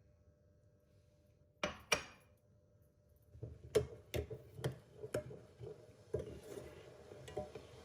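Kitchenware clinking against glass: two sharp clinks about two seconds in, then a run of lighter taps and knocks roughly twice a second, as when a remedy mixture is being worked in a glass container.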